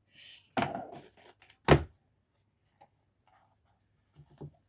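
Things being handled close to the microphone: a short rustle, a brief clatter, then a single loud knock a little under two seconds in, followed by a few faint clicks.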